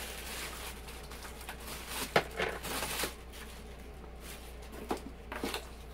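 Tissue paper rustling in a cardboard subscription box as items are handled, with one sharp click about two seconds in and a few softer clicks near the end.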